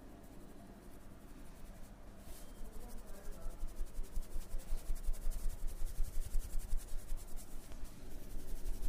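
Hand massage strokes on skin, quick and rhythmic at about five a second, starting faintly and growing stronger from about three seconds in.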